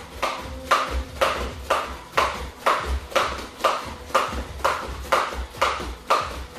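Skipping rope slapping a foam judo mat and bare feet landing on it in a steady rhythm, about two beats a second, each a sharp slap over a dull thud.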